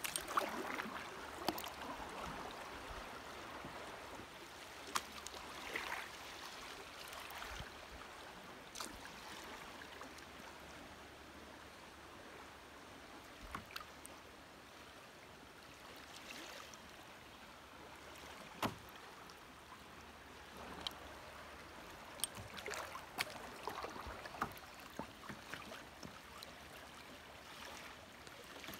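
Kayak paddling on a creek running high: paddle strokes splashing and water washing along the hull, with a few sharp knocks.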